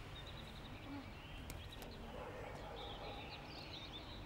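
Faint high chirping of small birds, in short scattered bursts, over a low steady outdoor rumble.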